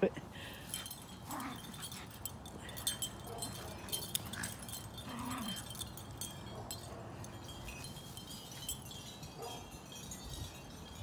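Two puppies play-fighting, giving a few faint whines and grumbles, over scattered faint high tinkling.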